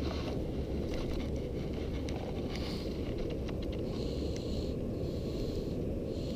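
Steady wind noise buffeting the microphone, with faint small clicks and rustles of hands working a hook free from a small bass's mouth.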